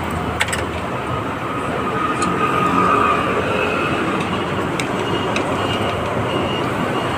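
Street traffic with a large vehicle running close by: a steady rush of engine and road noise that swells slightly a couple of seconds in, with a faint whine.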